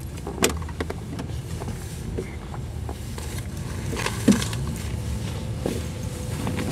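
Cars' engines running at low speed as convertibles roll slowly past close by, a steady low rumble with a sharp knock about four seconds in.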